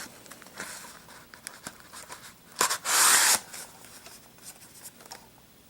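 Knife packaging being handled: rustling and crinkling with small taps, and one loud rustle about three seconds in.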